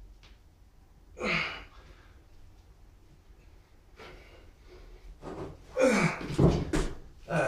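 A man's hard, voiced exhalations and gasps with a falling pitch, spaced a few seconds apart, between decline push-up reps. About six seconds in come louder gasps and dull thumps as he drops his feet off the chair to the floor, ending the set.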